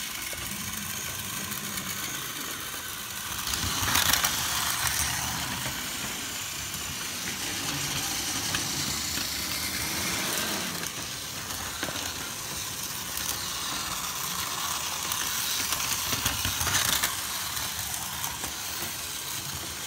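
Several battery-powered Tomy Plarail toy trains running on plastic track: a steady whir of small motors and wheels rattling on the track, swelling louder about four seconds in and again near the end.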